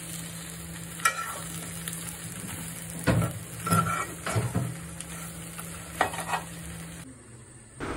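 Metal spoon stirring pieces of crab frying in a metal wok: a low sizzle with a few scrapes and knocks of the spoon against the pan, as the crab fry is nearly done.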